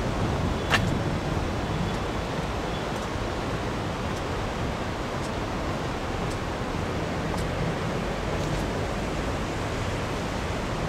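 Steady rushing noise of the flood-swollen Delaware River pouring past under the bridge, heaviest in the low end, with one short sharp click about a second in.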